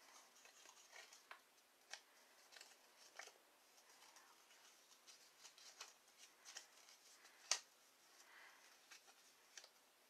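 Faint rustling and light clicks of cardstock being handled and creased by hand, with one sharper click about seven and a half seconds in.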